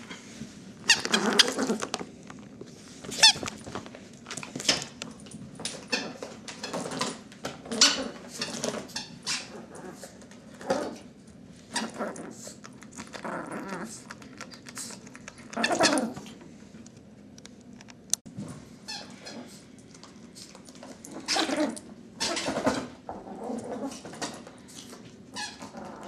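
Teacup Yorkshire terrier puppy yapping in short, irregular bursts during play.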